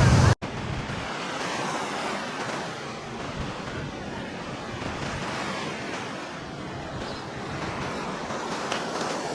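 Surf washing onto a sandy beach, a steady hiss of waves, with some wind on the microphone.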